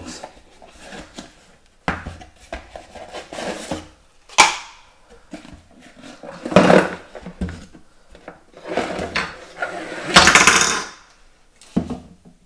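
Unpacking by hand: cardboard packaging and plastic-bagged accessories rustling and crinkling, with irregular knocks and clatter as the items are set down on a countertop, one sharp knock about four seconds in.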